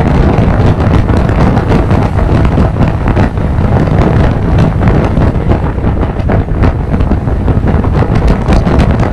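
Loud, steady wind buffeting on the microphone of a motorcycle riding at road speed.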